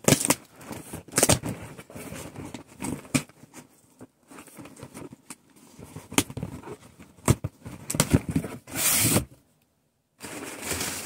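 Cardboard shipping box being opened by hand: scattered knocks and scrapes of the cardboard and tearing of packing tape, with a longer rip about nine seconds in, then a moment of dead silence.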